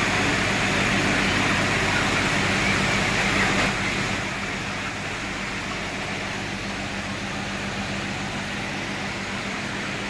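Ventilation fan in a broiler chicken shed running with a steady hum and a rushing noise; the level drops a little about four seconds in.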